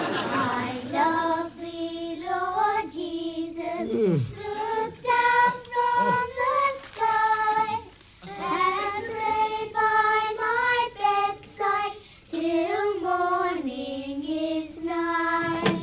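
A group of children singing a Christmas carol, a single melody in held notes.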